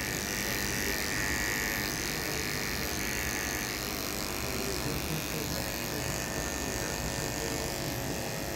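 Andis electric hair clipper running steadily as it cuts close around the side of the head, a motor buzz with a high whine that is strongest in the first few seconds.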